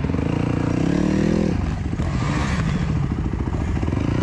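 Dirt bike engine pulling under throttle, its revs climbing for about a second and a half before dropping sharply as the throttle is shut, then picking up again near the end.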